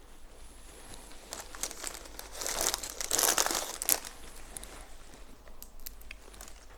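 Dry crinkling and crackling of brittle dried flowers being handled and broken apart, loudest for a couple of seconds in the middle, then a few light clicks.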